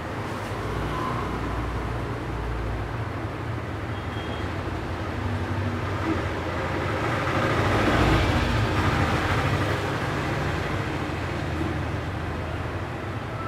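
Road traffic noise, with a vehicle passing that grows louder to a peak about eight seconds in and then fades away.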